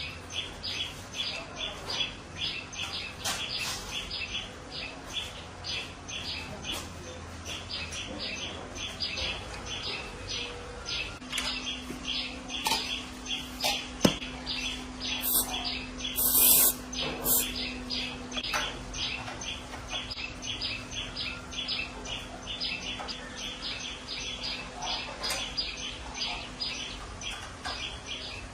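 A short high-pitched chirp repeating steadily, about two to three times a second, over a low steady hum, with a brief louder hiss a little past the middle.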